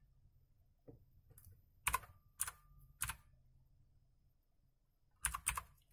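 Computer keyboard keystrokes as a password is typed: single keys pressed about every half second, then a pause and a quick run of keystrokes near the end.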